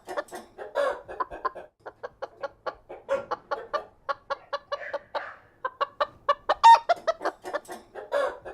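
Chickens clucking: a quick, steady run of short clucks, about four or five a second, with a few longer, louder calls among them.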